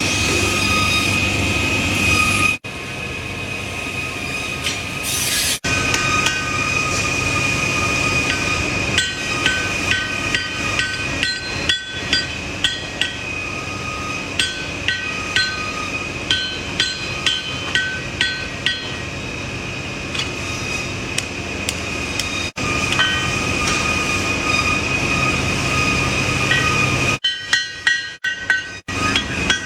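Hammer blows on a knife blank on an anvil during forging, each strike ringing out, at about one a second through the middle and in a quicker flurry near the end. A steady high whine and a continuous rushing noise sit underneath, and the sound cuts off abruptly a few times.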